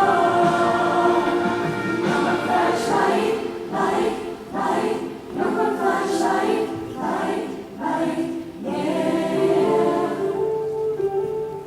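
Choir singing a sustained chordal passage, with a run of sharp rhythmic accents in the middle, settling onto a long held chord about nine seconds in.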